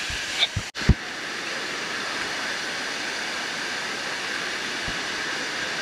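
Waterfall cascade rushing steadily, an even hiss of falling water, with a few low bumps in the first second.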